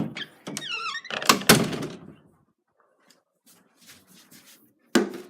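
A door squeaking and thudding, with a few faint knocks and then a sharp knock about five seconds in.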